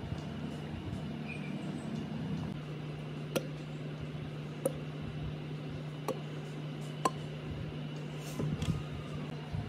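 Four sharp, light clicks, about a second or so apart, over a steady low hum, with a few softer knocks near the end.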